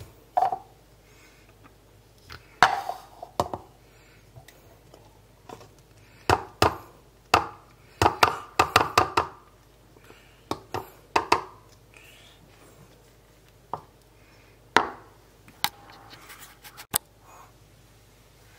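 Kitchen handling noises: irregular knocks and clinks of dishes and a glass being set down and moved on a granite countertop, busiest about six to nine seconds in.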